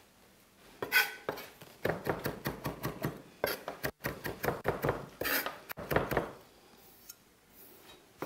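Chef's knife chopping fresh coriander on a thick wooden chopping board: a rapid run of blade strikes on the wood from about a second in, stopping about six seconds in.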